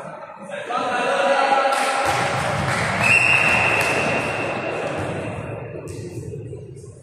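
Several players' voices calling out together, then about three seconds in a referee's whistle blows once: a steady, shrill note held for about a second and a half. This is the whistle that signals the next serve.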